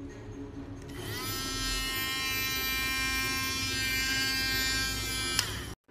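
Cordless handheld milk frother's small electric motor switched on, whining up to speed about a second in and then running at a steady high buzz with its wire whisk spinning free in the air. A click comes near the end, and the sound cuts off just after it.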